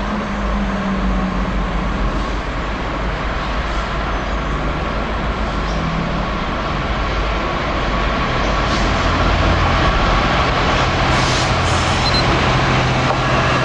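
Class 66 diesel locomotive's two-stroke V12 engine running as it hauls a train of coal hopper wagons, growing louder from about eight seconds in as it draws near.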